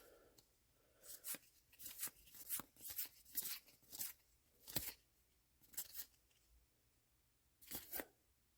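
Trading card booster pack's foil wrapper being torn open and crinkled, in a run of short rustling tears over a few seconds, then a couple of single crinkles.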